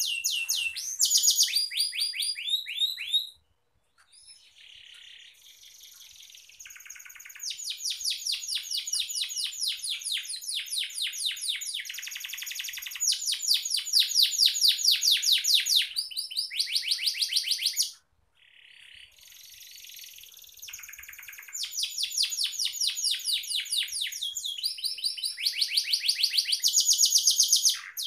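Domestic canary singing a long, vigorous song of fast trills and rolls, each phrase a rapid run of repeated sweeping notes, with two brief pauses, about three seconds in and about eighteen seconds in.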